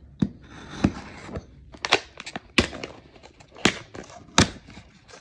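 A knife slitting the tape and edge of a cardboard shipping box, with handling rustle and about six sharp snaps and taps spread through it.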